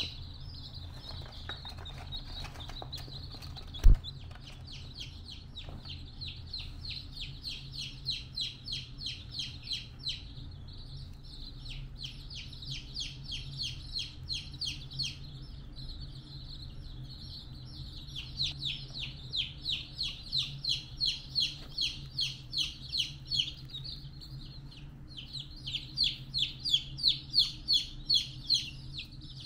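Rapid high-pitched peeping chirps, several a second, coming in long runs with short pauses between them. A single loud thump sounds about four seconds in.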